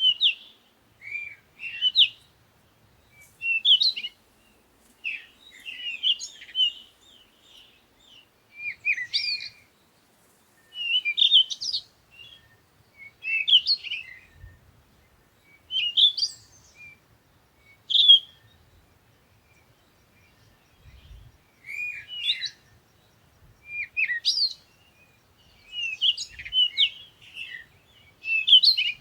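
Birds chirping in short phrases of quick, high notes, a phrase every second or two, with a pause of a couple of seconds past the middle.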